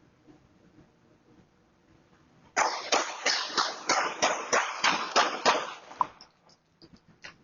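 A rapid, even string of about fourteen loud bangs, roughly four a second, starting a few seconds in and lasting about three and a half seconds, followed by a few fainter knocks near the end.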